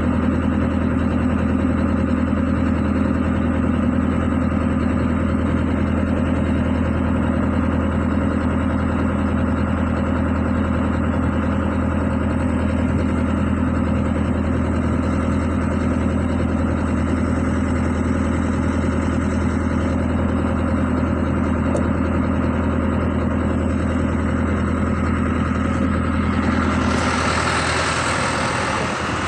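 Excavator's diesel engine idling steadily with a deep, even hum. About three seconds before the end the engine note drops away and a hiss takes over.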